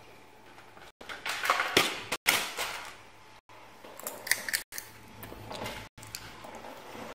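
Paper scraping and rustling against a tabletop in a few short scratchy bursts, loudest from about one to three seconds in. The sound cuts out for an instant about every second.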